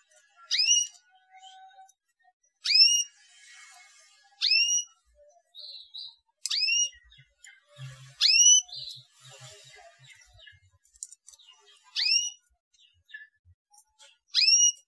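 Canary "cuit cuit" contact calls: sharp rising whistled chirps, seven in all, spaced about two seconds apart, with a few short softer chirps between. This is the call played to stimulate young canaries into song.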